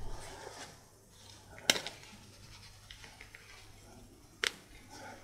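Faint scratching and small clicks of a plastic guitar pick working at a Bluetooth earbud's plastic housing, with two sharper clicks, one a little under two seconds in and one near the end.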